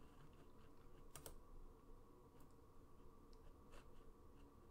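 Near silence with a few faint, sharp computer clicks, the clearest about a second in.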